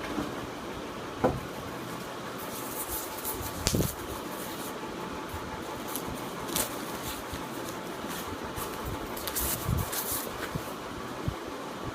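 Packaging being handled: crinkly rustling of plastic or cardboard and a few sharp knocks over a steady background hiss.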